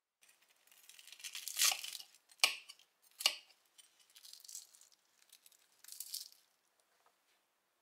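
Knife and fork cutting into the crisp beer-batter crust of fried salt cod: a crackly crunching for the first two seconds, two sharp cracks soon after, then softer crackles.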